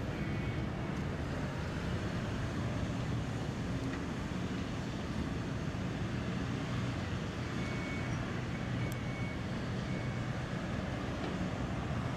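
Steady road traffic noise: a constant low rumble with no distinct events.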